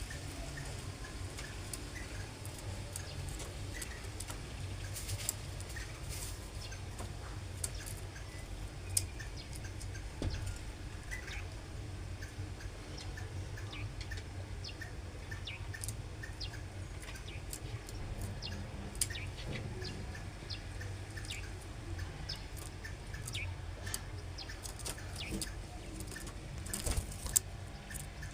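Caged canaries: scattered short chirps among many small clicks and taps, over a low steady rumble.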